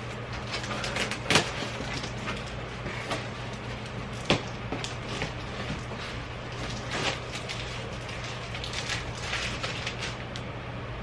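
Scattered clicks, rustles and knocks of things being handled and set down, with two sharper knocks about one and a half and four seconds in, over a steady low hum.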